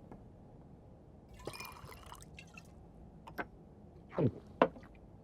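Faint liquid sounds of a drink: a short hissing splash about one and a half seconds in, then a few drip-like clicks and a quick sound sliding down in pitch near the end.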